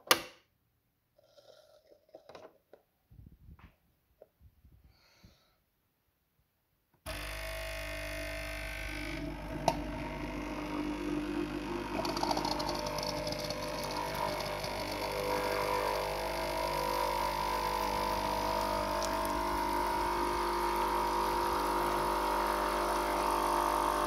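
A sharp click at the start, then about seven seconds in the Nespresso De'Longhi Inissia's vibration pump starts and runs with a steady buzz, pushing water through the machine into the jug for the first-use rinse, and stops suddenly at the end.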